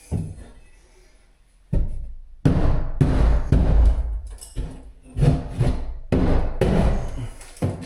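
Sheetrock being smashed and pried off the wall with a breaker bar: after a quiet first second or so, a run of loud, irregular crunching, cracking and scraping of drywall and wood.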